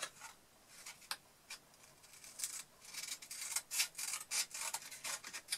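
Scissors cutting a strip of paper-backed 120-grit sandpaper: short scratchy cuts and rasps, sparse at first and coming thick and fast from about two seconds in.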